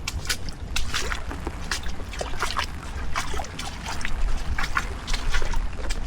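Rainwater dripping and splashing in many separate, irregular drops, over a low rumble of strong wind on the microphone.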